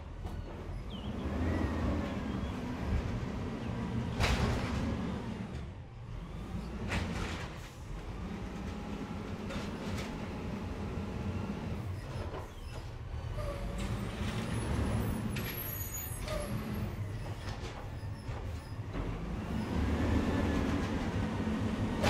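Natural-gas Peterbilt garbage truck standing with its engine running, the engine note swelling up several times as the hydraulics work. Two short sharp sounds stand out, about four and seven seconds in.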